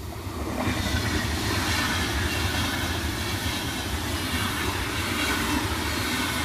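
A train passing close by on the line, the rush of its wheels on the rails building up over the first second and then holding steady and loud, with a faint high whine over it.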